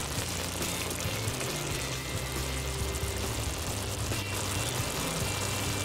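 Meatballs in tomato pasta sauce simmering in a nonstick frying pan, a steady bubbling hiss, under background music with low sustained notes.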